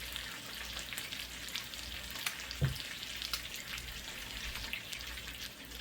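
Food sizzling in a hot electric baking pan, a steady hiss with scattered crackles, and one dull knock about two and a half seconds in.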